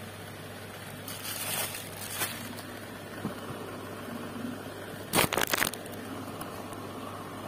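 Clear plastic packaging and a T-shirt rustling and crinkling as they are handled, with a brief cluster of loud crackles about five seconds in, over a steady low hum.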